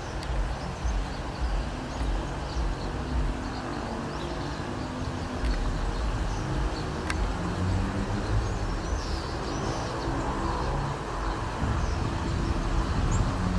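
Small birds chirping now and then in short high calls over a steady low rumble, with a single faint click about seven seconds in.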